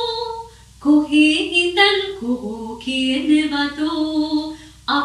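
A woman singing Sinhala verse unaccompanied to a chanting melody, with long held and gliding notes and a brief pause about half a second in.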